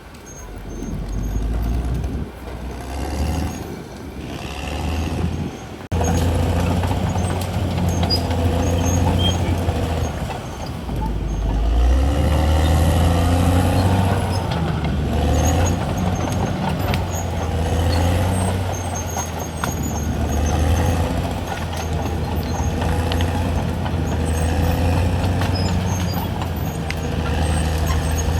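CAT D6R XL bulldozer's diesel engine running under load, a steady low engine note that gets suddenly louder about six seconds in.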